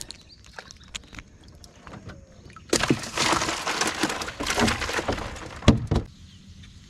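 A caught bluegill being put into a cooler on an aluminum jon boat. A few light clicks, then about three seconds of splashing and rattling, with a sharp knock near the end.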